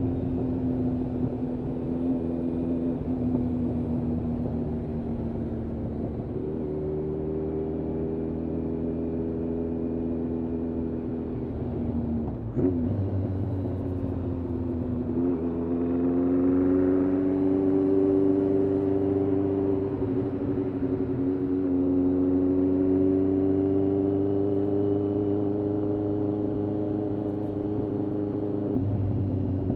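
Kawasaki ZRX1200R's inline-four engine, breathing through Yoshimura TMR-MJN carburettors, running under way. Its pitch sags slowly, steps up, and climbs and eases again with the throttle and gears. There is one brief sharp knock about twelve seconds in.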